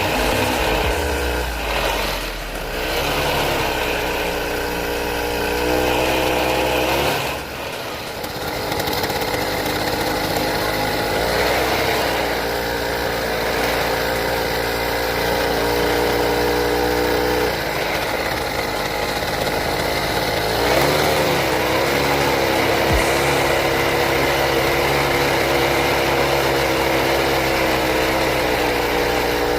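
Small grass-trimmer (brush cutter) engine running steadily, its speed dipping and rising a few times.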